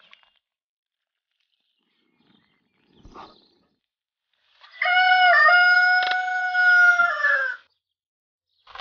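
A rooster crowing once, a single call of about three seconds that starts about five seconds in, holds a steady pitch and drops at the end. The rest is near silence.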